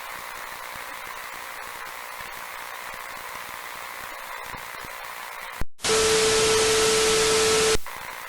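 Steady broadcast static hiss with a faint hum. About five and a half seconds in, a click, then a loud burst of harsh static with a steady low tone for about two seconds, cut off abruptly.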